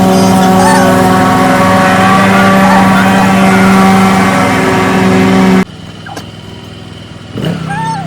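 A loud, steady motor hum runs under background music and cuts off abruptly about five and a half seconds in, leaving the music alone.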